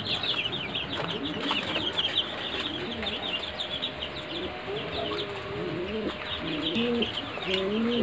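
A flock of young Sonali chicks peeping constantly: many short, high peeps overlapping, with lower-pitched calls joining from about halfway through.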